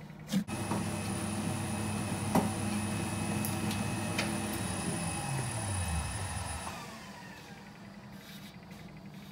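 Electric slime mixer switched on with a click and running steadily with a motor whine for about five seconds. It is then switched off and spins down, its pitch falling as it stops.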